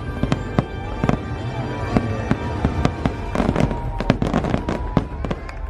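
Fireworks display bursting in quick succession: many sharp cracks and pops over a steady low rumble, with the show's music playing underneath.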